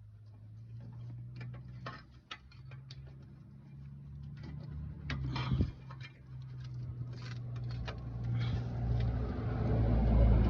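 Scattered metal clicks and taps of tools and brake parts being worked loose, with a louder knock about halfway through, over a steady low mechanical hum that grows louder near the end.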